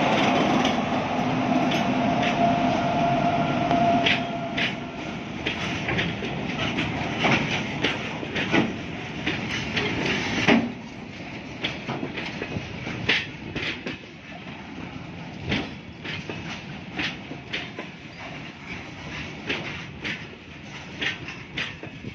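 A goods train passing close by. The locomotive goes by first with a steady drone, and then wagons loaded with iron roll past, their wheels clacking sharply and irregularly over the rail joints, louder for the first half.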